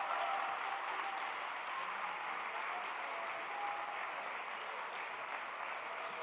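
Audience applauding steadily in a hall, with faint voices among the clapping.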